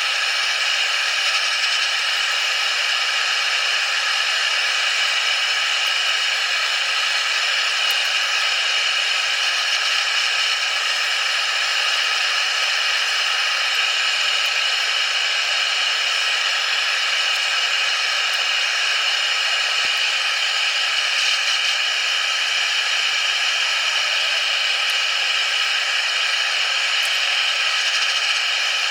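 Forge running with a steady, even rushing noise.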